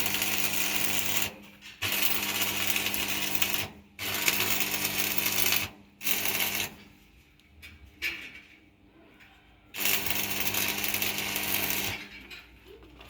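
Electric arc welding on steel in short runs of one to two seconds, a buzzing crackle over a low hum, stopping and starting several times.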